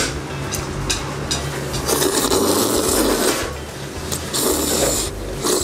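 A person slurping thick hand-cut noodles in red bean porridge (pat kalguksu). Two long, noisy slurps: one about two seconds in and another near the end.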